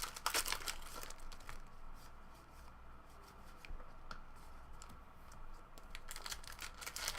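Foil wrapper of a 2016 Upper Deck Goodwin Champions trading card pack being torn open and crinkled. The crackling comes in clusters in the first second and a half and again near the end, with light ticks and rustles between.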